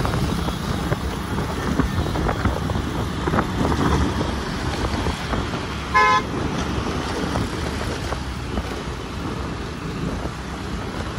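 City road traffic noise with a steady low rumble of engines and tyres, and one short car horn toot about six seconds in.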